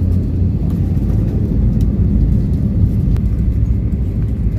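Cabin noise of an Airbus A320-family airliner on its landing rollout, with the ground spoilers up: a loud, steady, deep rumble of engines and wheels on the runway.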